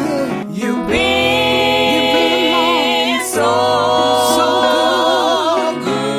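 Gospel music: voices singing long, held harmonised notes over a low bass, with the chord changing a few times.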